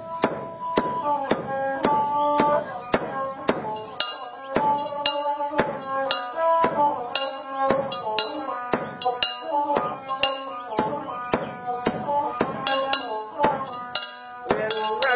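Brass mortar struck with a metal pestle while coffee is pounded: steady ringing metallic knocks, about three a second, in a rhythm like a hand drum, with music and pitched tones sounding along with it.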